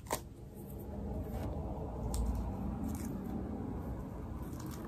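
Peel-off face mask being pulled off the skin by hand: a few faint sticky clicks over a steady low room hum.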